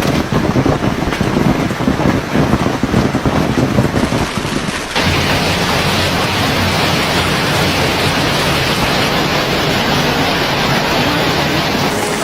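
Heavy hail pelting down: a dense, rapid clatter of hailstones striking. About five seconds in it changes abruptly to a steadier, denser rush.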